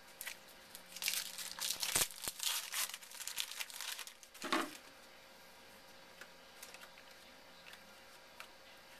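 Foil trading-card pack wrapper crinkling and tearing as it is opened, with the cards inside being handled. The crackling is busiest in the first four seconds, then dies down to a few faint rustles.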